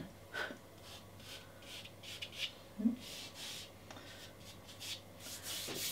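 Fingertips rubbing soft pastel into pastel mat paper to blend it, a series of short, soft scratchy strokes.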